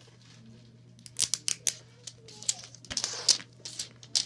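A large plastic toy egg being pried open by hand: sharp plastic clicks and crinkling of its wrapping start about a second in, with a longer scraping crackle about three seconds in.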